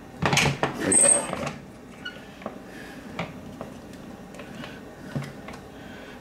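Plastic ice maker parts clattering and knocking as they are handled, loudest in the first second and a half, then light scattered clicks and taps.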